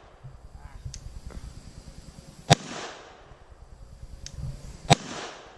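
Two 9mm pistol shots from a SIG SP2022, about two and a half seconds apart, each a sharp crack followed by a short echo.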